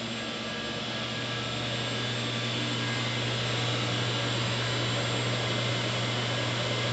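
Steady machine hum with an even rush of fan-like air noise, slowly growing a little louder.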